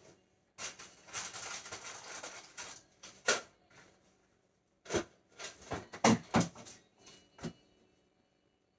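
Kitchen handling noises: about two seconds of rustling, then a run of sharp knocks and clunks, the loudest pair about six seconds in, like cookware and cupboard or oven doors being handled.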